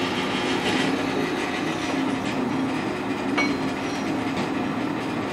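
Ridgid drill press running, its bit drilling holes in steel armor plates. A steady motor hum under the cutting noise, with one sharp click about three and a half seconds in.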